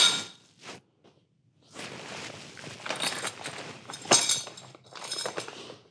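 Rustling and scattered small clicks from a bag of parts and cable connectors being handled and sorted through by hand, starting about two seconds in.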